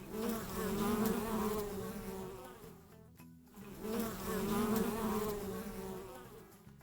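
Bee buzzing: a wavering drone that swells up and fades away twice, with a short break in between.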